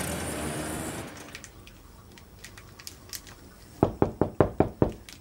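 Rapid knocking on a bathroom door: about six sharp knocks in just over a second, near the end.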